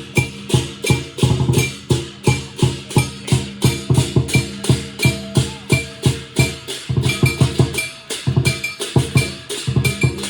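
Teochew lion dance percussion: a large drum beaten in a fast, steady rhythm, with sharp clacking strikes and a ringing metal tone recurring with the beat.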